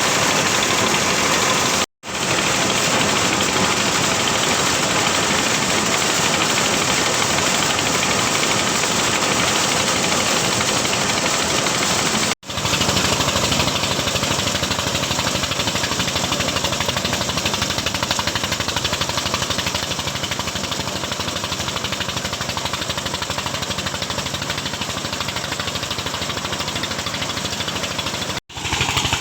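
Engine-driven corn sheller running steadily while threshing maize, a loud dense mechanical noise. It cuts out abruptly three times and comes straight back.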